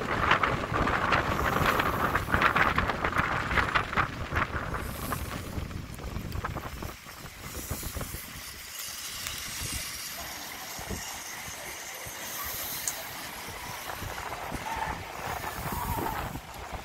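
Zip-line trolley pulleys rolling fast along a steel cable, a rough rumbling whir like a train on rails, which dies down about seven seconds in as the ride slows, leaving a quieter steady rush of air.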